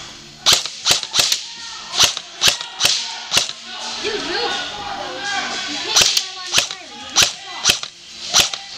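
Airsoft guns firing single shots: about a dozen sharp cracks, spaced unevenly in two clusters, one in the first few seconds and another near the end. Faint voices are heard between the clusters.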